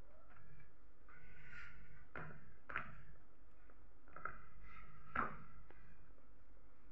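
A few light knocks and taps from a metal springform cake pan being handled as bread dough is pressed into it by hand, the sharpest about five seconds in.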